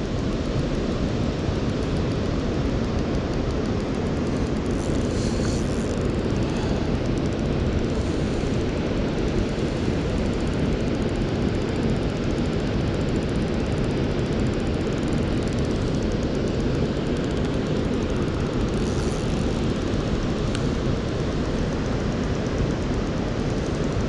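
Steady rushing of river water pouring over a weir, an even roar with no breaks.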